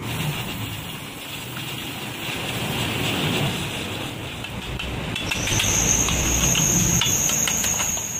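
Welding on a steel motorcycle frame: a steady crackling hiss with small pops. A thin, high steady whine joins about five seconds in and lasts about three seconds.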